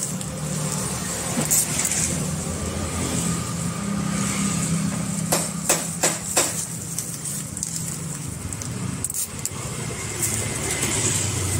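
Steady low hum of road traffic and idling vehicle engines, with paper wrappers rustling and four quick sharp clicks a little past halfway.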